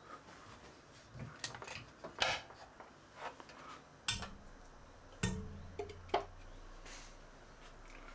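Steel BT30 tool holders being handled and set into a wooden rack: a scattering of sharp metallic clinks and knocks, with a low hum lingering after a louder clank about five seconds in.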